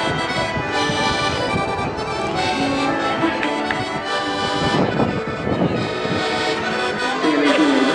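Traditional music led by an accordion, playing steadily.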